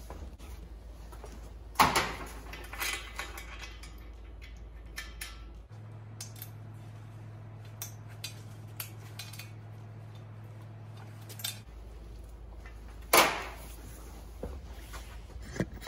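Metal clinks and knocks from steel engine-stand parts being handled and fitted: a bolt going into the stand's pivot in place of the pin that the engine's torque sheared off. The two loudest knocks come about two seconds in and near the end.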